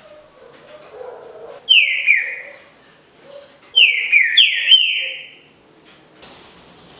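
Green-winged saltator (trinca-ferro) singing its 'canto liso Paraná' song: loud whistled notes that each slide down in pitch, two about two seconds in and three or four more in quick succession about four seconds in.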